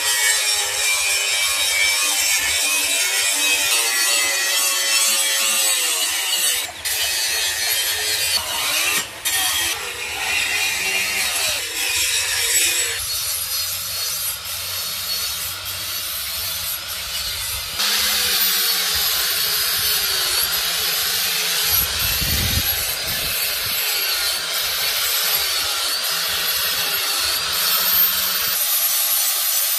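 Handheld angle grinder grinding the edges of steel knife blades: a steady, high-pitched grinding of the abrasive disc on metal, its tone shifting abruptly a couple of times.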